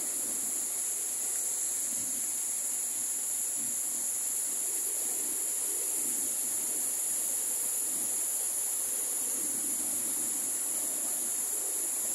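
A steady, high-pitched chorus of insects shrilling without a break, over the fainter rush of a waterfall.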